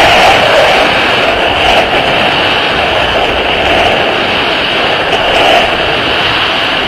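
Wind rushing over a skydiver's camera microphone in freefall: a loud, steady rush of air with slight swells.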